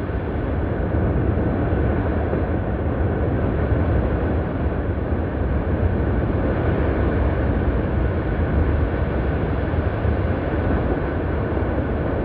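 Steady deep roar of an erupting volcano, a continuous rushing rumble with only small swells and no breaks.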